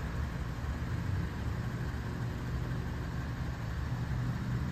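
Steady low hum of a vehicle engine idling.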